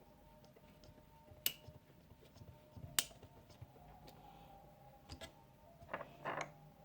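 Scattered small clicks and taps of hardware being handled while fitting a GPU liquid-cooler bracket: one sharp click about a second and a half in, a sharper one about three seconds in, and a short cluster of taps near the end.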